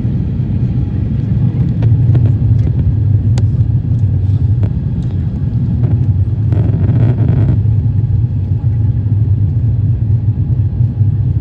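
Steady low rumble inside the cabin of an Airbus A350-900, airliner engine and airframe noise, with a brief rush of higher noise about seven seconds in.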